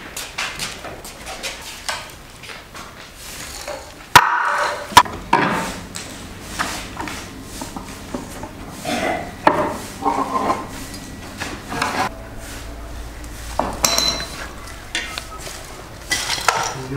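Wooden boards and planks being knocked, dropped and pried apart with a metal pry bar: a run of wooden knocks and clatters, with two sharp loud knocks about four and five seconds in.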